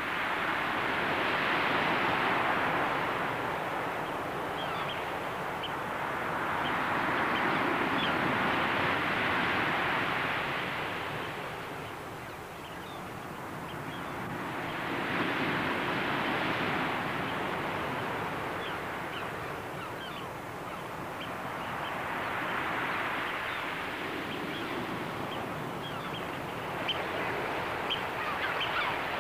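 Ocean surf breaking on a beach, the wash swelling and fading about every seven seconds as each wave comes in and draws back.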